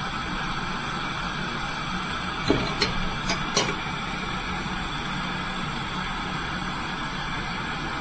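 Lampworking bench torch flame hissing steadily as glass rods are heated in it. About two and a half seconds in, four short sharp clicks as glass rods are handled.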